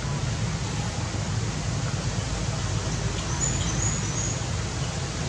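Steady outdoor background noise with a low rumble underneath, and a few faint high chirps a little past the middle.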